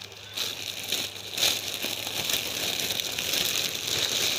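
Thin clear plastic bag crinkling and rustling continuously as plastic aquarium flowers are pushed into it and handled.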